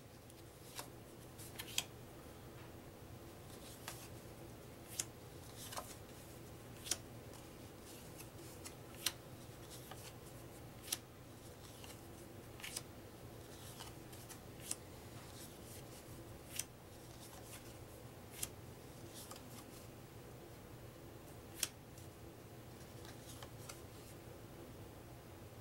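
Paper trivia cards being handled one at a time off a stack, each move giving a short, crisp snap, about every one to two seconds, over a steady low hum.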